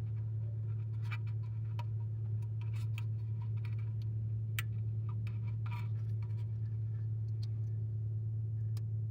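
A steady low hum with scattered light clicks and ticks over it.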